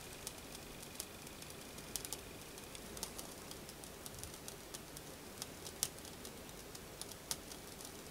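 Faint, irregular ticks and clicks from a small brass Hero's (aeolipile) model steam engine heating over its methylated spirits burner, with a faint thin whistle for the first three seconds or so.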